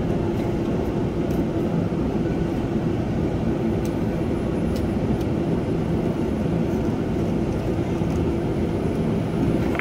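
Evaporator fan motors of a frozen food display case running with a steady hum, switched back on by disconnecting the defrost termination switch leads. A few faint clicks of wire nuts and wires being handled.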